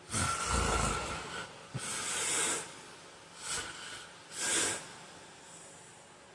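A sleeping man snoring: one long snore with a low rattle lasting about a second, then three shorter breathy breaths, the last about four and a half seconds in.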